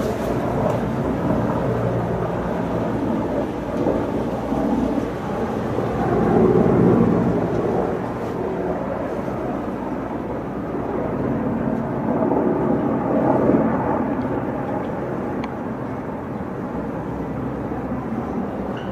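Military helicopter flying low: a continuous rumble of rotor and engine that swells twice, about six and thirteen seconds in.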